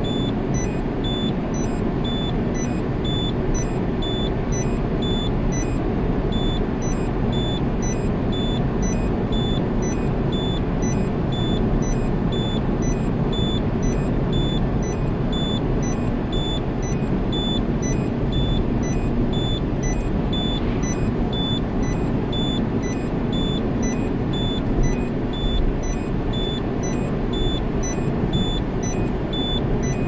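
Peugeot 308 SW seat-belt warning chime beeping over and over at an even rate, over the car's steady low running noise. It is a false alarm: moisture under the rear carpet has shorted the rear seat occupancy sensor, so the system believes someone unbelted is sitting in the back.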